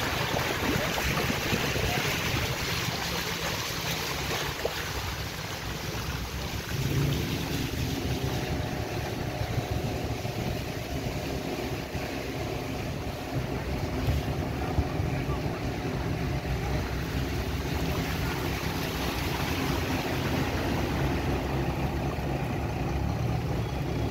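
Steady wind noise on the microphone. About seven seconds in, the steady hum of a running engine joins it.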